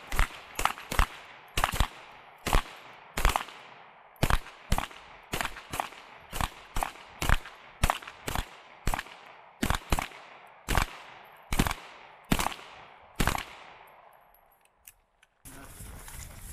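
Pistol fired in a long string of single shots, about two a second with brief pauses, each shot followed by a short echo; the firing stops about 13 seconds in.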